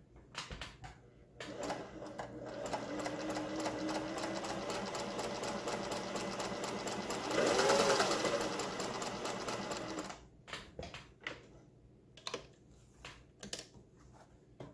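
Singer 401A sewing machine running and stitching straight stitches through fabric after a few clicks. The motor speeds up briefly and is loudest about eight seconds in, then the machine stops about ten seconds in and a few scattered clicks and knocks follow.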